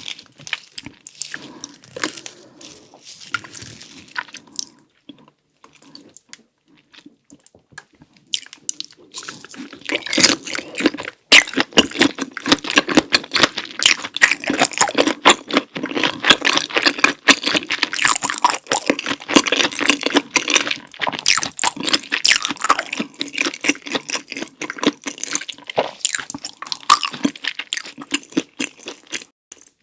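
Close-miked chewing of food in the mouth. For the first several seconds there are soft, scattered mouth clicks; from about eight seconds in comes a dense, loud run of rapid chewing clicks, which thins a little near the end.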